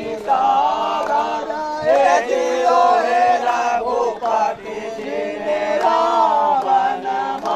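A group of people chanting together, the melody rising and falling.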